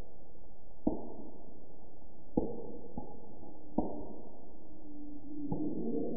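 Soundtrack of five sharp hits at uneven spacing over a steady low drone, with a faint held tone entering between the last few hits.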